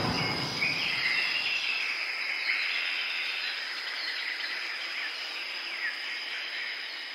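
Jungle ambience closing out an entrance theme: a steady high insect drone with short bird chirps, slowly fading out as the last of the music's boom dies away.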